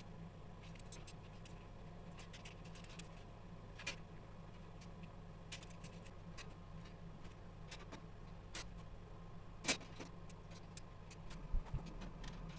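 Small metal clicks and clinks of a sheet-steel machine stand being assembled by hand, as bolts and steel crossbars are handled and fitted, with one louder clank just before ten seconds in. A steady low hum runs underneath.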